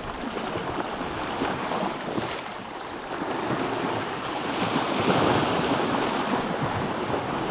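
Small sea waves breaking and washing over shoreline rocks, a steady rush of surf that grows louder about five seconds in as a wave washes in.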